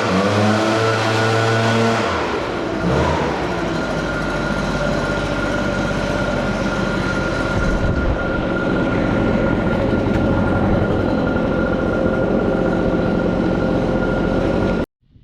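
Pressure washer running steadily: its engine note shifts about two seconds in, then holds steady under a hiss. It cuts off suddenly near the end.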